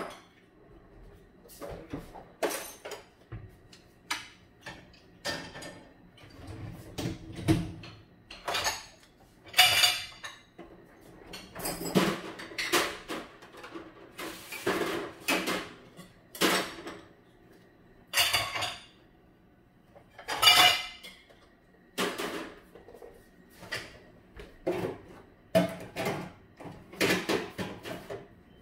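Dishes and cutlery clinking and clattering in irregular knocks, a few louder clanks among them.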